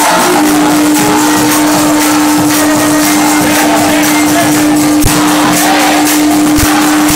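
Loud kirtan music: hand cymbals (kartals) keep up a steady rhythm over one long held note.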